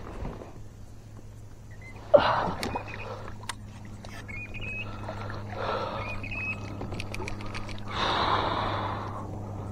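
Hooked bass splashing at the surface beside the kayak as it is brought in: a sudden loud splash about two seconds in and more splashing later, near the end, over a steady low hum.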